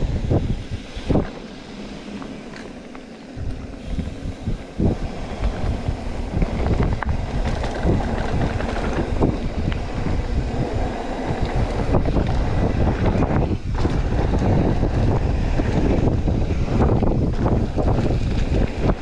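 Wind buffeting a chest-mounted action camera's microphone as a Specialized Turbo Levo e-mountain bike rolls along a dirt trail, with tyre rumble and frequent knocks and rattles from the bike over rough ground. It eases off for a couple of seconds about a second in.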